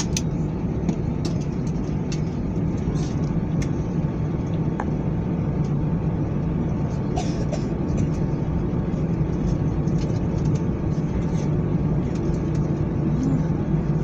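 Steady low rumble inside an airliner cabin as it taxis after landing, with engine hum and airframe noise and light ticks now and then.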